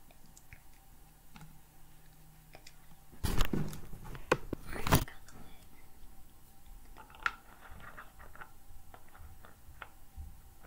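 Plastic bottles handled: a loud crackling and knocking of plastic for about two seconds, then a few light clicks as the water bottle's screw cap is twisted on.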